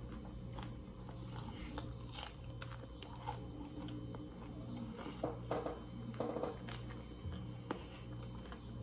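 Close-up sounds of a man chewing a mouthful of carne de sol and rice: soft wet mouth noises and small scattered clicks, with a faint low hum underneath.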